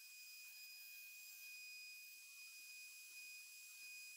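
Near silence: a faint, steady high-pitched tone over a light hiss, with no sound of the router cutting at its real level.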